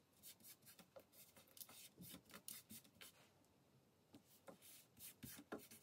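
Faint rubbing and rustling as fingers press and smooth glue-soaked fabric onto kraft-paper pieces, a run of short, irregular scratchy strokes.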